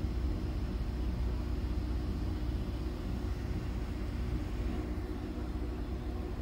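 Steady low background hum and rumble with a faint hiss, unchanging throughout, with no distinct clicks or events.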